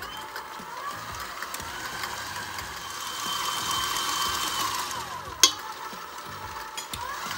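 KitchenAid Artisan stand mixer running with its wire whisk attachment, beating egg yolks, sugar and cornstarch: a steady motor whine. The pitch slides down about five seconds in, there is a sharp click, and the pitch climbs again near the end.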